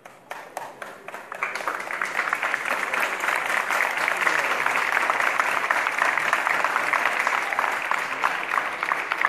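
Crowd applauding: a few scattered claps at first, swelling into steady, full applause about a second and a half in.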